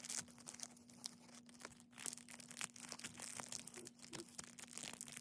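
Plastic blind-bag wrappers crinkling and tearing as they are handled and opened by hand, in irregular crackles and rustles, over a faint steady hum.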